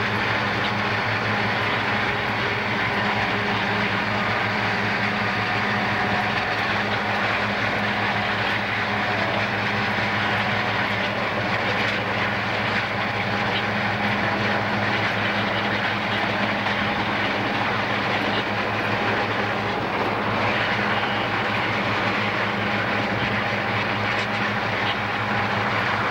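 Steady road and wind noise inside a moving car, with a low steady engine hum underneath.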